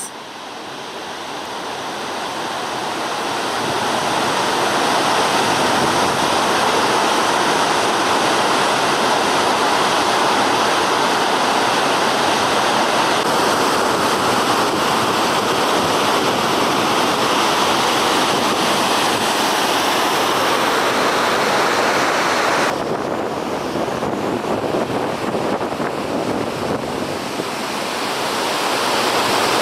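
Kakabeka Falls, a large waterfall, giving a steady rush of falling water. It grows louder over the first few seconds, dips slightly about 23 seconds in and builds again near the end.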